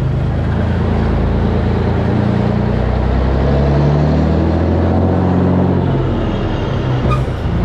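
Volvo N12 truck's diesel engine running loud through its open twin exhaust pipes while driving, heard from outside behind the cab. The engine note rises and then drops back about three to five seconds in.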